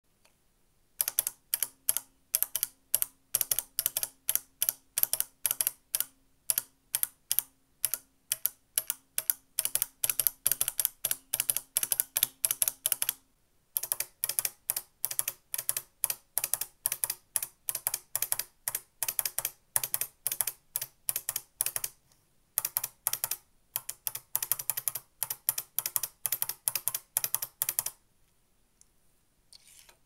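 Beam spring key switch modules, an original and a new one, pressed rapidly by finger on a bare keyboard PCB. Each press gives a sharp clack from the snapping beam spring, at about four a second, in three runs with short pauses between. A low ringing tone hangs under the clicks in the first run.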